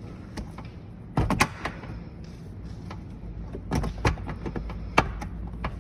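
Plastic trim clicking and knocking as a panel popper tool pries at a 2018 Ford Focus ST's B-pillar trim panel whose clip will not let go: a short cluster of knocks about a second in, more around four seconds, and one sharp click near five seconds.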